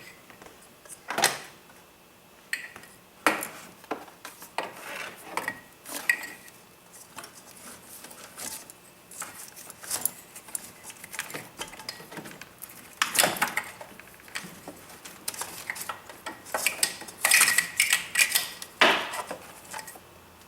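Irregular metallic clinks, clicks and rattles of hands working a glow plug wiring harness and its connectors through an engine bay: the old harness being fished out and the new one fed in. The louder clatter comes in bunches in the second half.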